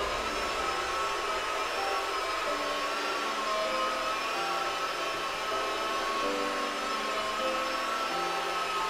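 Electric rotary polisher running steadily at speed on wet car glass, polishing out scratches with cerium oxide powder and water; an even, high motor whine.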